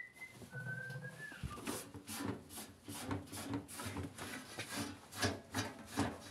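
A short high whistle-like chirp in the first second, then a run of scratchy rubbing strokes, about two to three a second.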